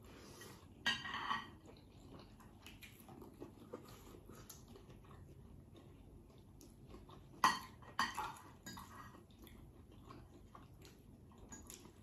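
Dishes and cutlery clinking and scraping during a meal, with faint eating sounds. A short scrape about a second in and a few sharper clinks around seven and a half to eight seconds are the loudest moments.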